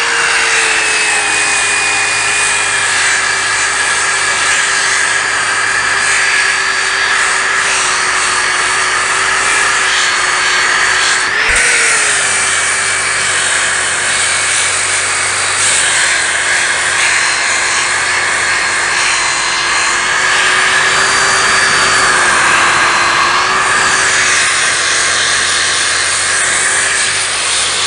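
Electric orbital sander running steadily as its pad sands soft, not yet hardened glue squeeze-out off the face of an end-grain wood cutting board. The motor note holds steady apart from one brief rise in pitch partway through.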